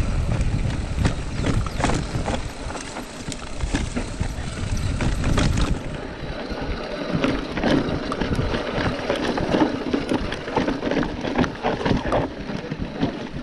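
Mountain bike ridden down a dry, rocky dirt trail: tyres crunching over dirt and stones, with the bike clattering and rattling over bumps. Wind buffets the microphone for about the first half.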